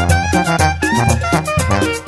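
Mexican tamborazo band music: brass and reeds playing a melody over a steady beat of drum and cymbal strokes.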